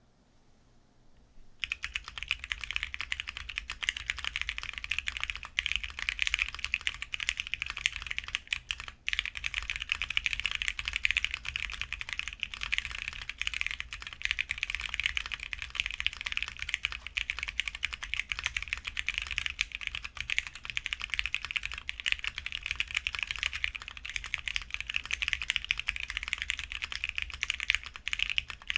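Fast, continuous typing on a Bakeneko60 aluminium mechanical keyboard with unlubed stock Akko CS Jelly Black linear switches, an FR4 plate and doubleshot PBT keycaps. The keystrokes start about a second and a half in and run densely, with a brief pause near nine seconds.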